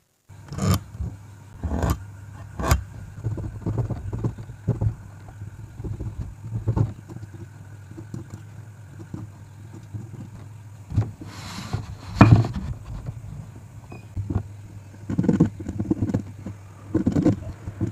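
Scattered knocks and taps of hardwood blocks and a steel combination square being picked up, set down and repositioned while a joint is marked out with a pencil, with one short scratchy stroke a little past the middle. A steady low hum runs underneath.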